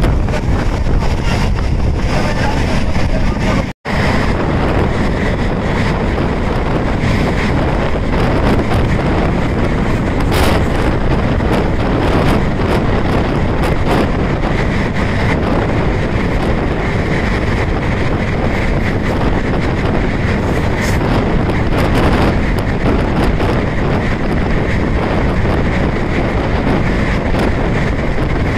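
Passenger train running at speed, heard from on board, with heavy wind buffeting the microphone. The sound cuts out for an instant about four seconds in.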